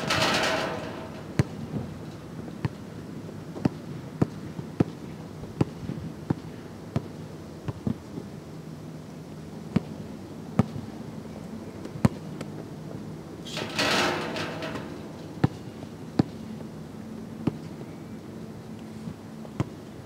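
A basketball bounced on an outdoor hard court, with sharp bounces about once a second. Twice, at the start and about two-thirds of the way through, a louder noisy crash lasts about a second.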